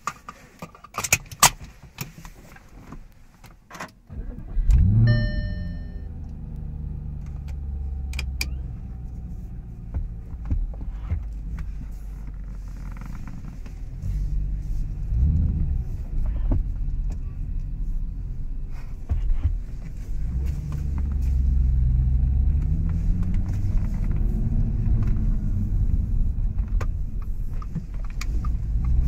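Keys jangling and clicking, then the Audi S5 with its AWE Tuning aftermarket exhaust starts about five seconds in with a sharp rev flare and a short beep. It settles to idle, gets one throttle blip, then pulls away with the engine note rising and falling through the gears, heard from inside the cabin.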